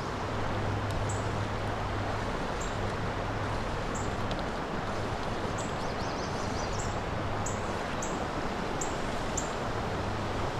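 Creek water rushing steadily through a riffle, with short high chirps repeating about once a second.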